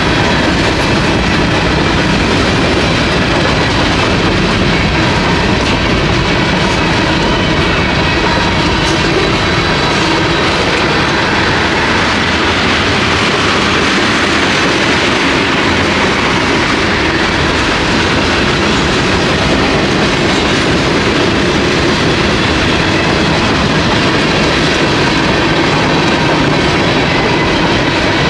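Freight cars of a passing mixed freight train rolling steadily past at speed, steel wheels running on the rails in a constant, unbroken noise.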